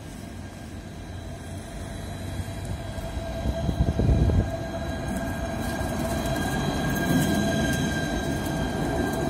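Alstom Citadis 302 tram approaching and passing close on a curved track, its running noise growing louder, with steady high-pitched whine tones over it. A brief low rumble peaks about four seconds in.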